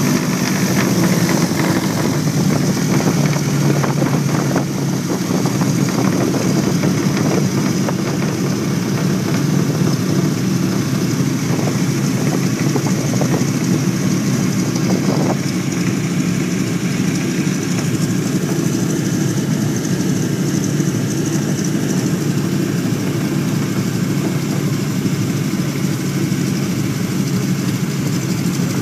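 1929 Ford Tri-Motor's radial engines running steadily at low taxi power, heard from inside the cabin right beside the wing engine and propeller.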